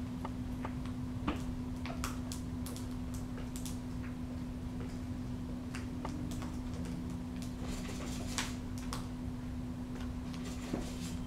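Peregrine falcon tearing at quail meat with its beak: scattered, irregular clicks and short ripping sounds, with a denser run of them about eight to nine seconds in, over a steady low hum.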